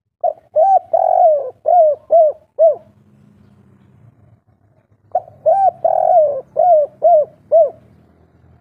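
Spotted dove (derkuku) cooing its 'kuk 3' song, the type that keepers of local birds prize. It gives two phrases a couple of seconds apart, each a quick run of about six rising-and-falling coos.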